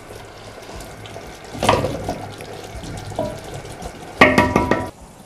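Aluminium pot lid being handled and set back on a cooking pot. There is a knock about a second and a half in, then a metallic clatter with ringing just after four seconds, over a faint steady hiss from the pot.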